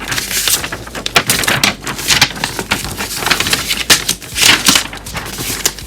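Irregular clicking and clattering of hard plastic model-kit parts and sprues being handled and rummaged through.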